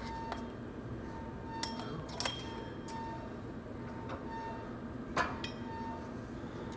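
Gym background music with a short high note pulsing about every three-quarters of a second, over which a weight-stack leg machine gives a few sharp metal clinks as the plates move during reps, the loudest about five seconds in.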